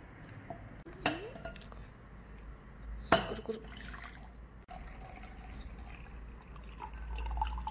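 Glass clinks sharply twice, about one and three seconds in. Then water pours from a glass jug into a drinking glass for the last few seconds.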